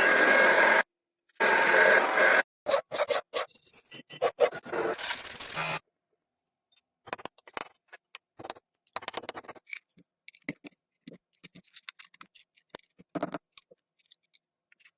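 Scraping and rubbing on the metal of a padlock in two loud spells in the first couple of seconds. After that come scattered small clicks, taps and rattles as the lock is handled, broken by abrupt cuts to silence.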